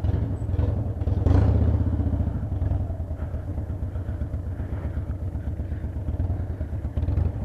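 Harley-Davidson Dyna Super Glide Custom's V-twin engine running steadily at low revs, with a short louder moment about a second in.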